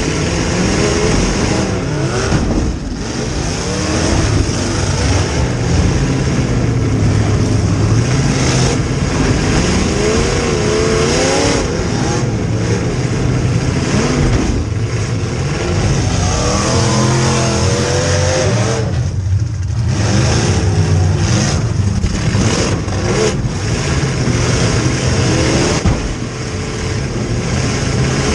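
A demolition derby car's rear-mounted V8 engine, heard from inside the car, running loud and revving up and down again and again. It drops off briefly a couple of times as the throttle comes off.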